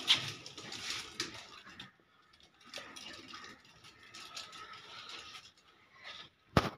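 Small plastic ride-on toy car rolling and rattling over a concrete floor, an uneven scraping with scattered clicks, and one sharp loud click near the end.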